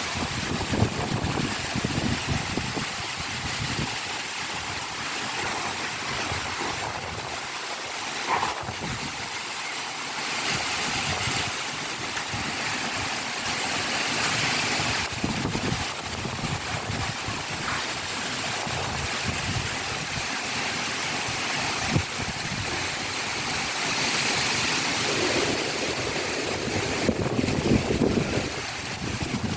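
Heavy rain falling steadily in a hiss, with strong gusts of wind buffeting the microphone in irregular low rumbles.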